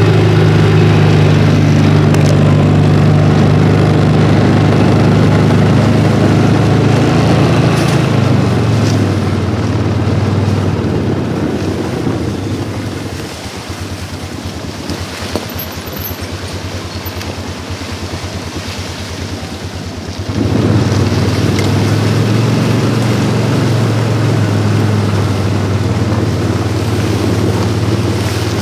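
A vehicle's engine running steadily at a low hum; about 13 seconds in it drops to a quieter, evenly pulsing idle, then picks back up about 20 seconds in.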